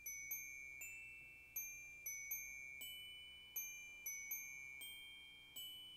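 Soft, high bell-like chime notes struck one at a time in an even, unhurried pattern, about one every half to three-quarters of a second, each ringing on and fading.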